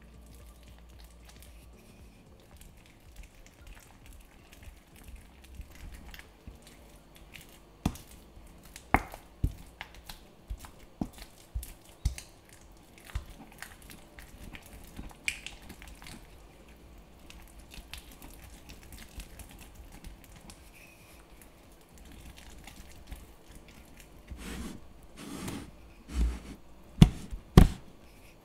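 Wooden pestle mashing and grinding basil pesto with olive oil in a marble mortar: wet squelching and scraping with irregular knocks of wood against the stone, the sharpest knocks coming in a cluster near the end.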